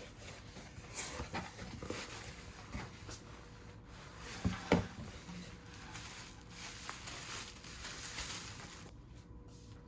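Rustling and light clicks of objects being handled, with a louder double knock about four and a half seconds in.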